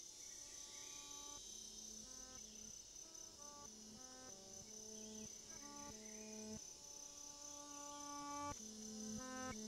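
A steady, high-pitched drone of insects, typical of tropical forest, with a slow melody of sustained music notes below it that come quicker near the end.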